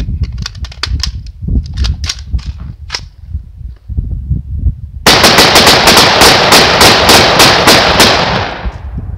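Gunfire from two AR-style rifles. A few scattered sharp cracks come first. Then, about five seconds in, a fast, continuous string of shots runs for about three and a half seconds and ends in a fading tail.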